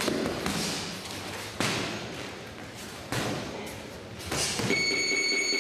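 Boxing gloves thudding as punches land in sparring, three heavy hits about a second and a half apart, each ringing on in the hall. Near the end a steady high electronic beep starts.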